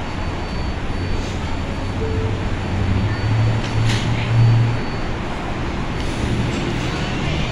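New York City subway train standing at the platform with a low steady hum, its doors sliding shut with a brief sharp knock about four seconds in.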